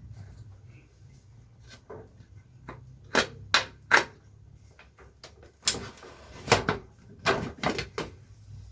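Irregular knocks and clatters of kitchen work, about a dozen sharp hits with the loudest clusters about three seconds in and again near the end, over a low steady hum.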